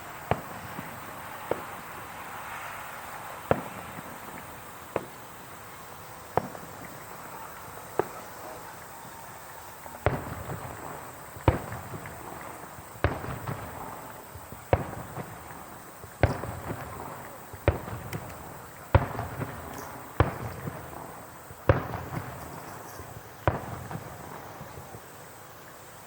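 Fireworks bursting overhead in a steady series of sharp bangs, about one every second and a half. From about halfway through, each bang is followed by an echoing rumble.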